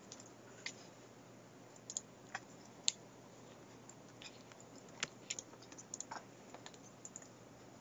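Faint, scattered clicks of computer keys and a mouse. Near the end comes a quick run of keystrokes as a file name is typed.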